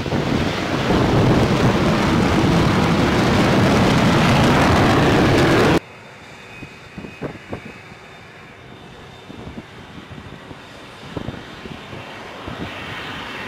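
F-35B's jet engine and lift fan running loud and steady as it hovers close over the deck. A little under six seconds in the sound drops abruptly to a much fainter, distant jet hover with a faint high whine and a few soft knocks.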